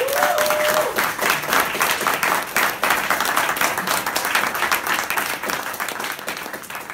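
Audience applauding, with a cheer rising over the clapping in the first second; the clapping thins out near the end.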